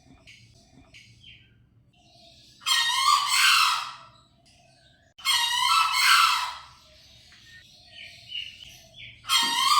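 Green junglefowl (Gallus varius) crowing: two shrill, harsh crows about three seconds apart, each lasting about a second and a half, with a third starting near the end. Faint short calls sound between the crows.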